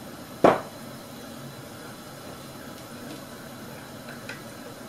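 A ceramic mug of gravy set down on the worktop with a single sharp knock about half a second in, then two faint spoon clinks in the mug, over a steady low hiss from steak patties frying in the pan.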